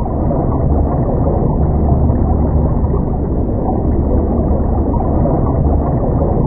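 Underwater ambience sound effect: a steady, muffled low rumble.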